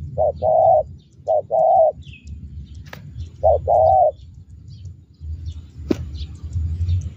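Spotted dove (tekukur) cooing: three low two-note coos, each a short note followed by a longer one, in the first four seconds. The heavy 'petir' (thunder) voice valued in a decoy dove. A low rumble runs underneath, with two sharp clicks later and faint chirps of small birds.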